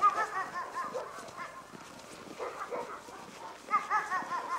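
German shepherd dog giving repeated short, high-pitched yelping whines. There is a quick run of them at the start, a few single ones after that, and another quick run about three-quarters of the way in.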